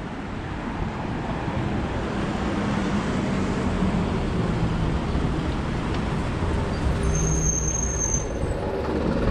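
Street traffic with a city bus running close by: a steady rumble of engines and tyres that grows louder near the end, with a brief high squeal about seven seconds in.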